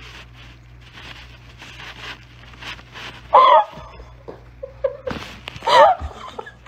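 A person's voice: quick breathy huffs, then two loud, squealing cries that bend in pitch, about three and a half and six seconds in.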